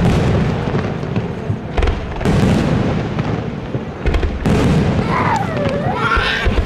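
Aerial firework shells bursting in quick succession: a dense run of booms and bangs over a continuous low rumble.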